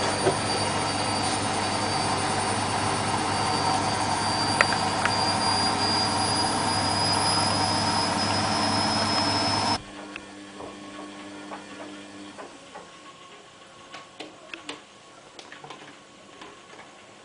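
Beko WMA642 washing machine on a fast spin: a steady motor and drum rush with a high whine that creeps slowly upward in pitch. It cuts off suddenly about ten seconds in, leaving a much quieter hum with light clicks and rattles.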